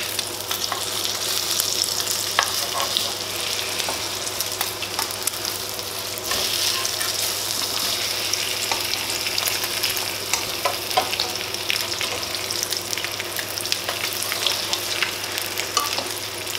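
Egg-dipped bread slices sizzling steadily as they fry in oil in a nonstick frying pan, with scattered light clicks and scrapes of a metal spoon and spatula lifting and turning them.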